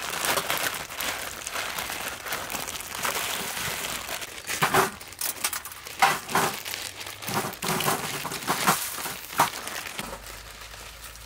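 Plastic instant-noodle packets crinkling and tearing as they are ripped open and the seasoning sachets pulled out, with several sharp clacks as dry noodle blocks are set onto a steel tray. It gets quieter near the end.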